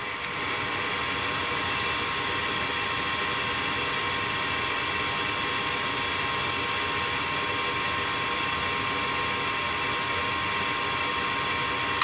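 Lennox G40UH gas furnace's draft inducer motor running steadily before ignition, a constant whir with a fixed whine.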